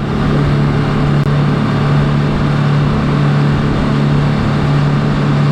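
A boat's engine running steadily under way: a loud, even drone with one strong low pitch. It dips out for an instant about a second in.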